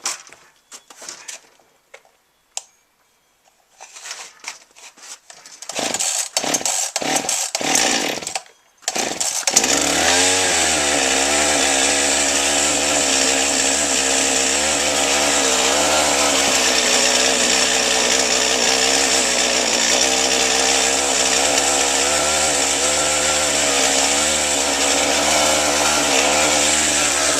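Husqvarna 55 two-stroke chainsaw being started: a few seconds of light clicks and handling, then a run of short cranking pulls, and the engine catches about nine seconds in and settles into a steady idle, its pitch wavering slightly.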